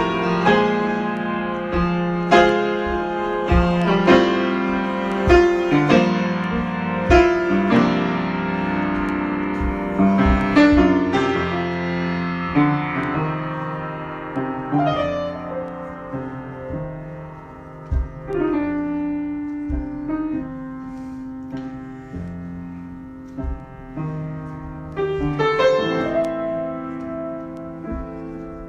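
Solo piano improvisation: chords struck and left ringing, busier and louder in the first half, thinning to sparser, softer notes in the middle and picking up again near the end.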